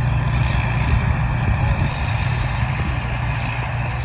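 Rice combine harvester running steadily, its engine hum low and even under a constant machine noise.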